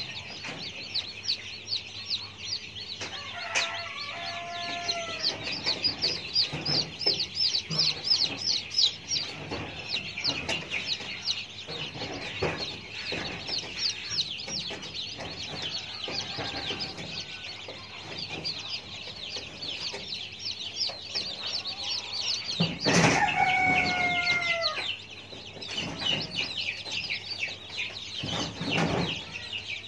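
Chickens calling: a constant fast, high chirping, with a longer falling call about four seconds in and again, louder, about 23 seconds in. Scattered knocks throughout, the loudest just before that second call.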